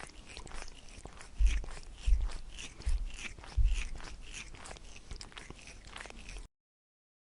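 An animal chewing and crunching food: many small crisp clicks, with four heavier low thumps in the first half. It cuts off a little before the end.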